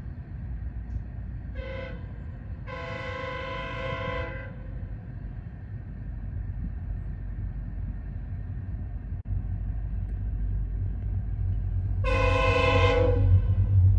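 Sounder commuter train's horn: a short blast, then a long blast of nearly two seconds, over a low rumble. After a sudden cut about nine seconds in, a car's road rumble builds, heard from inside the cabin as it drives alongside, and the train's horn sounds again for just over a second near the end.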